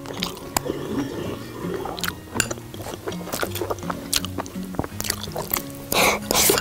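Background music with repeating low notes, over eating sounds: chopsticks clicking against a porcelain bowl and slurping of dough-drop soup. A loud slurp from the bowl's rim comes near the end.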